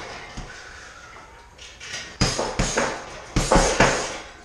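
Gloved punches landing on a hanging heavy bag. After a lull there are two quick flurries of about three hits each, from about two seconds in.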